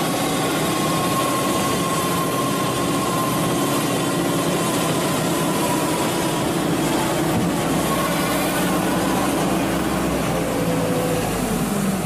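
Tracked skid steer loader running steadily as it drives and lifts its bucket arms: an engine drone with a thin steady whine above it.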